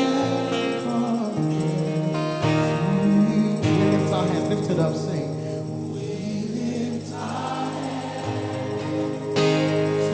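Live gospel worship music: a group of voices singing slowly over sustained instrumental chords and bass.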